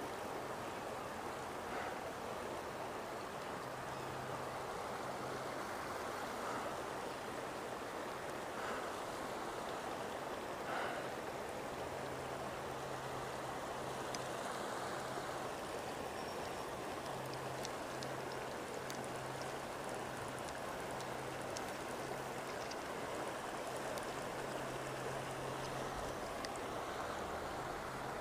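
River water flowing over a riffle: a steady rush of moving water. A faint low hum comes and goes underneath it.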